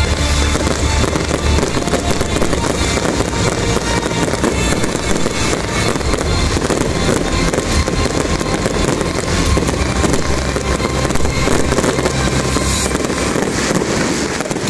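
Fireworks display: a dense, unbroken crackle of spark fountains and bursting aerial shells, with music playing underneath.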